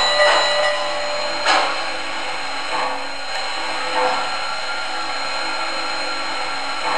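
MTH RailKing Blue Comet O-scale toy steam locomotive running slowly on its track: a steady electric motor whine under its sound system's hiss. A few soft, widely spaced chuffs come in the first half, and the sound then evens out as the engine slows.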